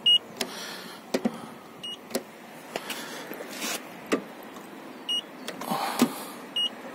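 Handheld paint thickness gauge giving four short, high beeps as its probe is pressed against the car's body panels, each beep marking a reading of the paint layer. Light clicks and taps fall in between.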